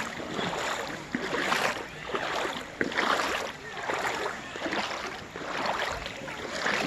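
Stream water running over rocks, a steady rushing noise with irregular louder splashes.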